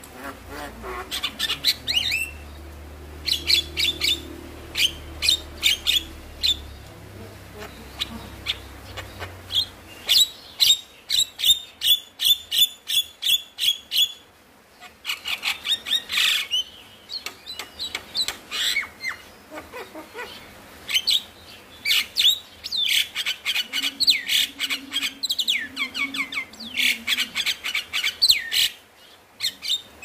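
Javan myna chattering in runs of rapid, sharp notes, several a second, broken by short pauses.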